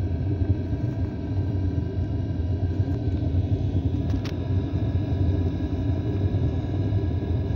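Exhaust of a diesel cabin heater, running steadily with a low, even combustion noise and a few faint steady tones above it. A single faint tick comes about four seconds in.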